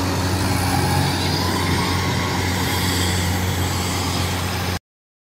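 Kubota crawler combine harvester running steadily while cutting and threshing rice, its engine hum mixed with the noise of the cutter and threshing drum. The sound cuts off abruptly near the end.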